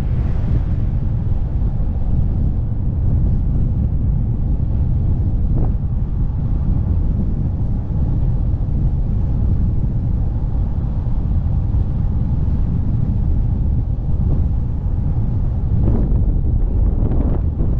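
Wind buffeting the microphone of a moving velomobile, a steady low noise with rolling road noise under it. There are a couple of faint knocks, one midway and one near the end.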